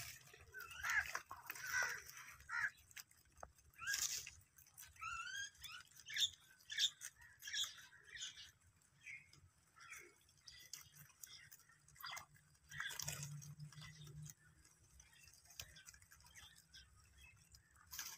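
Rabbits chewing and nibbling fresh-cut green fodder, with short bird chirps and quick rising calls scattered over it.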